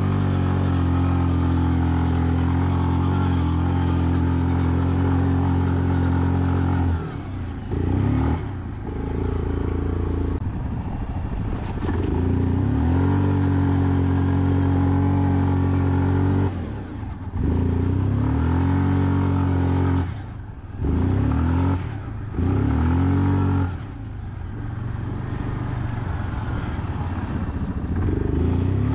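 ATV engine held at steady high revs in long pulls, with the throttle let off and picked up again several times, the pitch dropping each time it eases off.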